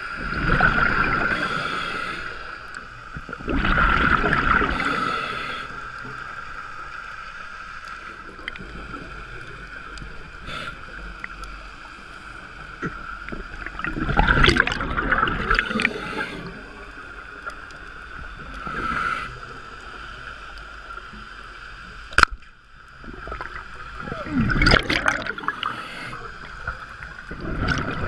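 Scuba diver breathing through a regulator underwater: a steady hiss, broken several times at uneven intervals by rumbling, gurgling bursts of exhaled bubbles.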